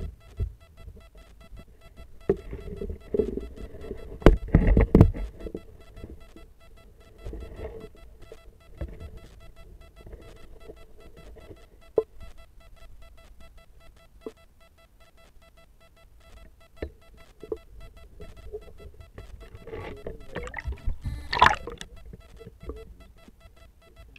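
Muffled knocks and thumps of an underwater action camera in its waterproof housing being moved and bumped among sticks and weeds. They come loudest about four seconds in and again near the end, over a faint steady electronic whine.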